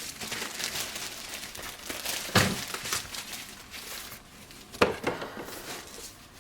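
Paper and packaging rustling as photo prints are handled, with a sharp knock about two and a half seconds in and another near five seconds.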